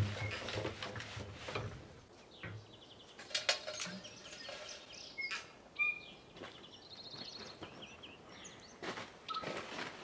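Scattered knocks and clatters of a wheelbarrow and concrete mixer being handled, with birds chirping and trilling in the background. A low hum dies away about two seconds in.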